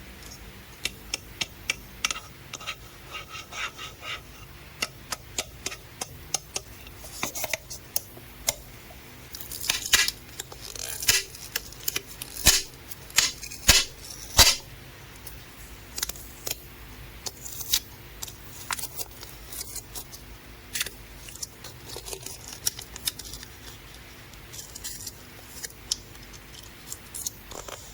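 Close-up paper-crafting handling sounds: irregular sharp clicks and taps with short rustling, crinkling bursts, thickest in the middle stretch, from scissors and paper being worked.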